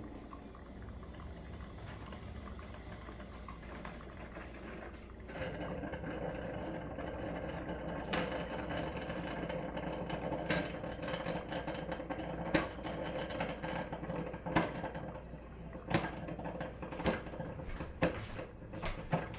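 Cuisinart drip coffee maker near the end of its brew cycle, hissing and gurgling steadily. About five seconds in it gets louder, then sharp pops and spurts of air and water come every second or two as the reservoir runs dry.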